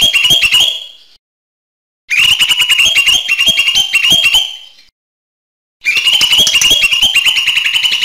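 Cucak hijau mini (a small leafbird) singing in rapid runs of sharp, high, chattering notes. One phrase ends just after the start, another runs from about two seconds in for roughly two seconds, and a third begins near the six-second mark.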